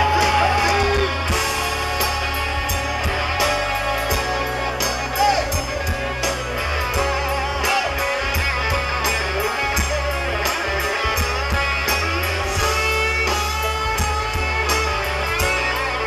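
Live band playing an instrumental passage: guitars over a steady drum beat and heavy bass.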